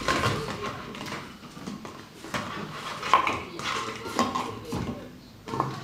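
An empty plastic water bottle knocking and crackling against a laminate floor as a dog pushes it about: irregular clattering knocks and crinkles.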